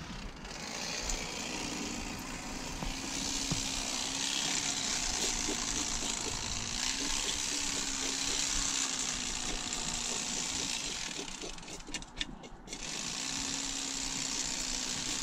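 A small motor running with a steady hum and hiss, stopping briefly about twelve seconds in and then starting again.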